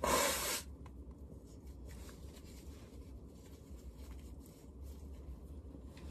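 A person blowing their nose hard into a paper tissue once, a loud noisy blast lasting about half a second, followed by faint rustling of the tissue against a low steady hum.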